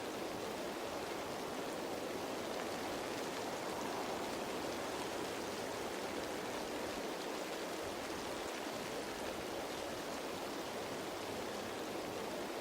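Steady rain falling on leaves, a dense even patter that holds constant throughout.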